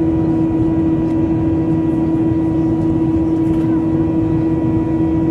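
Steady engine noise of an airliner heard inside the passenger cabin, with one strong unchanging hum and fainter high tones over it.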